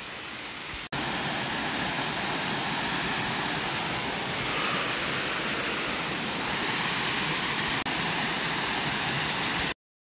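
A waterfall's steady rushing water, an even wash of noise. It drops out for an instant about a second in and cuts off abruptly just before the end.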